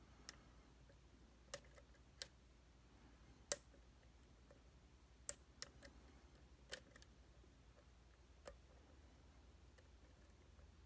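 Dimple lock being picked: sharp little clicks of a pick working the pins of a Titan T250 dimple lock, about ten of them, spaced unevenly a second or so apart.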